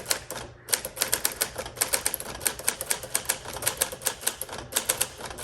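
Keys of a 1959 Smith Corona Sterling manual typewriter striking the paper in quick runs, several keystrokes a second, with short pauses about half a second in and again near the end.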